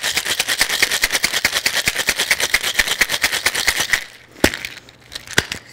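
Ice rattling in a Boston shaker (a glass set into a metal tin) shaken hard and fast: a rapid, steady clatter that stops about four seconds in. Two single sharp knocks follow.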